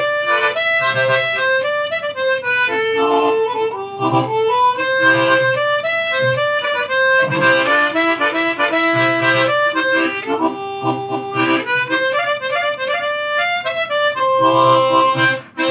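Chromatic harmonica played solo: a melody of held notes in its lower octave.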